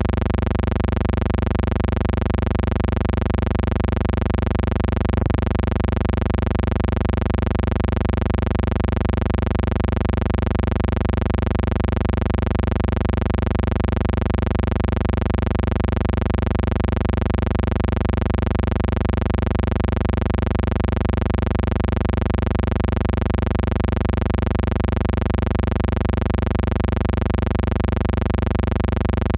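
Steady, unchanging low hum with a faint buzz, a non-scene noise on the soundtrack of silent film footage. A single click about five seconds in.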